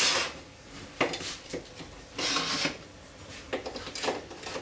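A knife scraping along the inside edges of a metal baking tray in about five short strokes, the longest about two seconds in, cutting a baked Bienenstich (bee-sting cake) loose from the tin.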